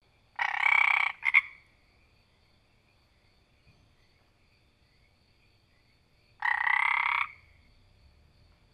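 A frog croaking: a call of under a second, followed at once by two short croaks, then another call of about a second some five seconds later. Faint steady high tones sound behind the calls.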